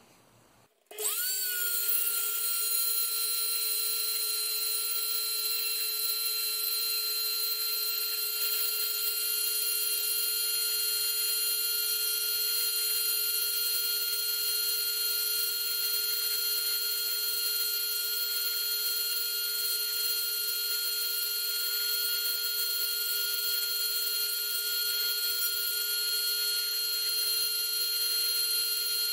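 Small high-speed rotary tool, used for drilling out window holes in a plastic model hull, spinning up about a second in and then running at a steady high whine.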